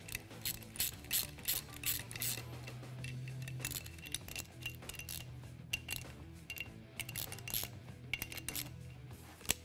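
Sharp metallic clicks and clinks, several a second: a hand ratchet turning ring gear bolts, drawing a new ring gear down to seat on a differential carrier. Background music with a steady low bass plays underneath.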